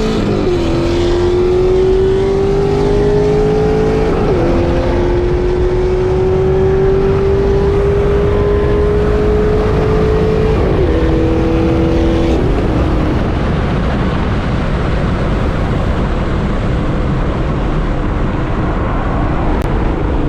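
Car engine accelerating hard through the gears: its pitch climbs steadily and drops sharply at each of about four upshifts, over loud wind and road noise. After about twelve seconds the engine note fades, leaving a steady rush of wind and road noise.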